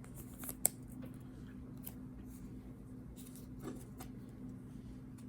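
Faint taps, clicks and slides of Topps Chrome trading cards being handled and flipped through by hand, with a sharper click about half a second in, over a steady low hum.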